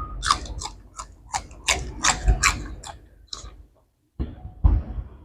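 Close-up chewing and mouth sounds of someone eating a spicy seafood papaya salad with rice noodles: a quick run of short wet clicks and crackles that pause briefly and then start again near the end.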